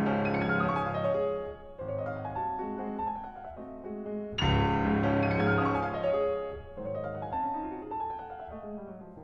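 Slow solo piano music: struck chords and single notes that ring out and fade, with a loud new chord about four and a half seconds in.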